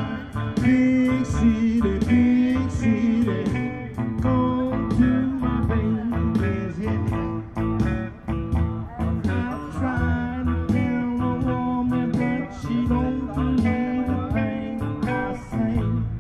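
Background music: a bluesy instrumental with guitar and saxophone over a steady beat.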